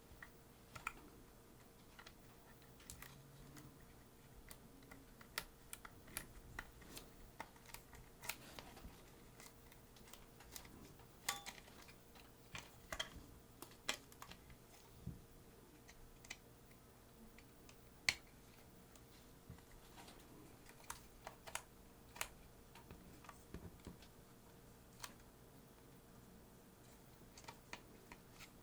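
Faint, irregular light clicks and taps of small hard parts being handled, a few to several a second at times, over a faint steady hum.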